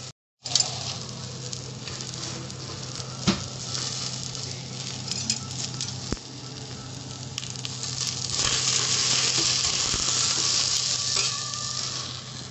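Mixed vegetables (peas, carrots, green beans, potato) sizzling as they sauté in a steel pot, stirred with a steel ladle that clinks against the pot a few times. After a brief silence at the start, the sizzle runs steadily and grows louder from about eight seconds in until near the end, over a low steady hum.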